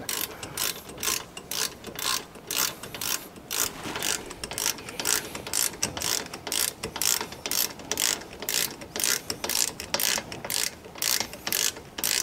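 Hand ratchet clicking stroke after stroke as the brake caliper bolts are run down and tightened.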